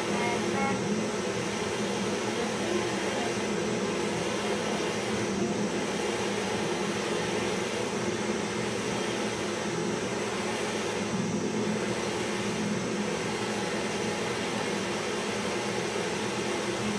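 Handheld butane gas torch burning with a steady hiss, its flame heating the drum of a small traditional popcorn machine.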